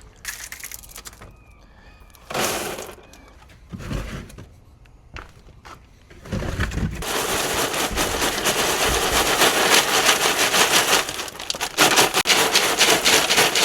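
Oyster shells rattling and scraping together in a grading screen: a few scattered knocks and rustles, then from about six seconds in a dense, continuous clatter of shells.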